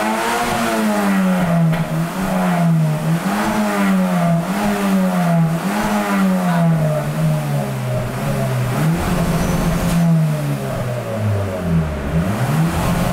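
Turbocharged Honda Civic VTi four-cylinder engine revving hard against its rev limiter. Its pitch rises and falls about once a second, sags lower near the end, then holds a steady high note.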